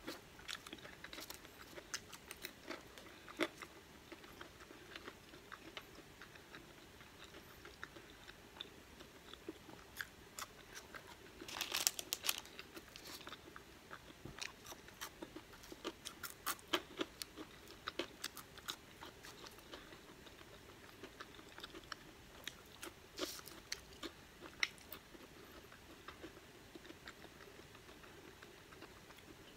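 Close-up chewing of crinkle-cut french fries: irregular crunches and mouth clicks, with a denser run of crunching about twelve seconds in.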